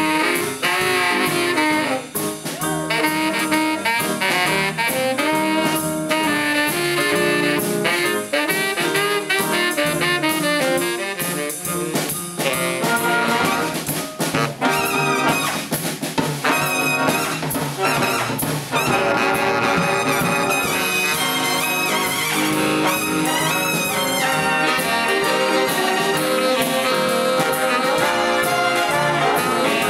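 Live big band playing swing jazz: saxophone section and brass over drums and upright bass.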